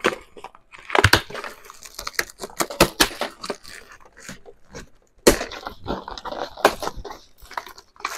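Packaging being handled: irregular crinkling and crunching with scattered sharp clicks and knocks, as a boxed organizer is unpacked.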